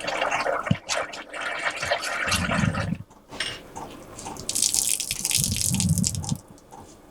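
Water gurgling and splashing in a campervan sink that will not drain, with a few deeper bubbling bursts. The sink is backed up because the grey water tank is probably frozen.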